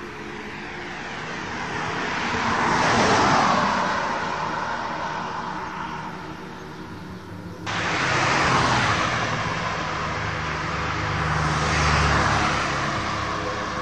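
Cars passing on a road, each one's engine and tyre noise swelling to a peak and fading as it goes by: one about three seconds in and another near the end, with an abrupt cut a little over halfway through.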